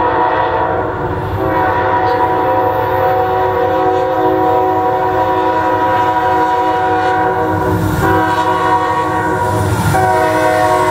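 Freight locomotive air horn sounding a chord in long blasts for a grade crossing, with short breaks about a second in, about eight seconds in and about ten seconds in. A low diesel rumble runs underneath as the locomotive draws near.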